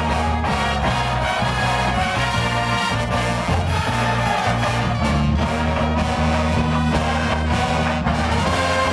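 Marching band playing a spy-themed show tune, with brass carrying the melody over a moving bass line and drums keeping a steady beat.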